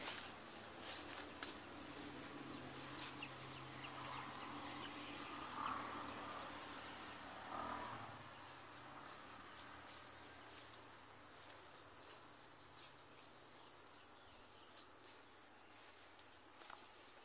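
Steady high-pitched chorus of insects, a continuous drone with faster pulsing above it. A few faint clicks and scuffs come near the start.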